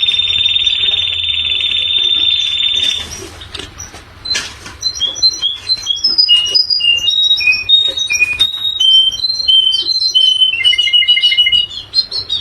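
Birdsong: a high, fast buzzing trill held steady for about three seconds, then a varied run of short, clear whistled notes that jump between pitches, ending in a quick rattle of repeated notes.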